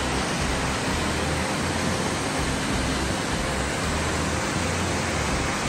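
Waterfall rushing, a steady, even hiss of falling water.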